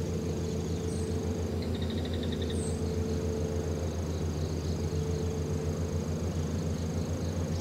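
Outdoor ambience: a steady low rumble under a thin, steady high-pitched tone, with a short bird trill about two seconds in.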